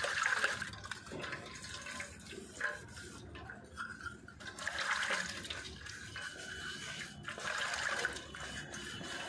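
Liquid sloshing and splashing irregularly as the tractor air cleaner's bowl is washed out by hand, with a quieter spell in the middle.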